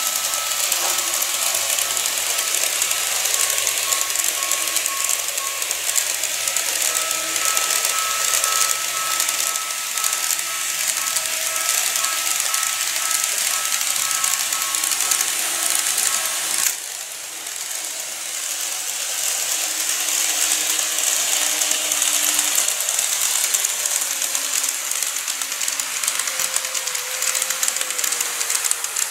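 An N-gauge KATO E531 series model train running on its track: the electric motor's steady whine, with a high hiss from the wheels on the rails. The sound drops suddenly a little past halfway, then builds again.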